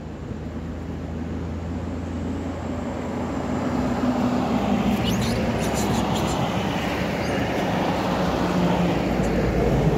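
Motor vehicle engine running with a steady low hum, growing louder about a third of the way in.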